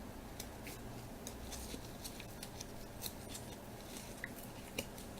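Faint, scattered small clicks and rustles of a 1998 Bowman Chrome football card pack being opened and its cards handled.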